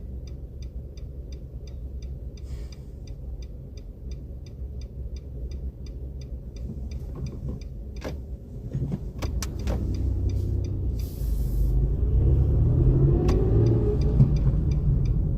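A car's turn-signal indicator ticking evenly, about two to three ticks a second, over engine and road rumble in the cabin; after about seven seconds the ticking stops and the engine note rises as the car pulls away and accelerates.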